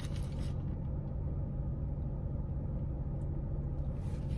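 Steady low hum of a car idling, heard inside the cabin, with a faint rustle of a food wrapper near the end.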